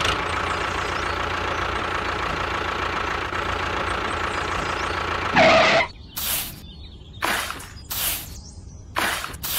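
Miniature model tractor running with a steady engine-like rattle that cuts off about five and a half seconds in. A short, loud pitched cry follows, then several short scraping bursts.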